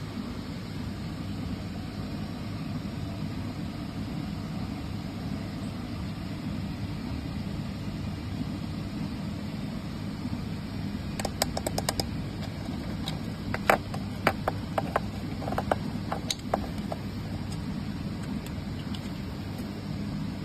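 A 3D printer running with a steady fan-and-motor hum. A quick run of sharp clicks and taps comes about halfway through.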